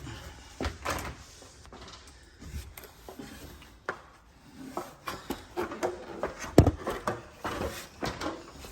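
Scattered knocks, clunks and rustles of things being handled and moved in a room, with one louder thump about six and a half seconds in.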